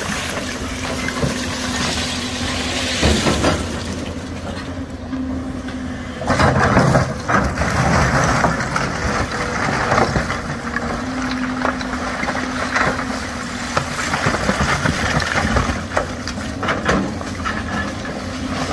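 Hydraulic tracked excavator's diesel engine running under load as the bucket digs into and shifts a pile of broken slate rock, with stones scraping and clattering against the steel bucket; the rock noise is loudest about six to seven seconds in.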